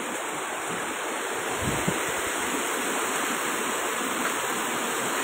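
Floodwater rushing steadily across a road in an even, continuous wash of water noise, with a couple of brief low bumps about two seconds in.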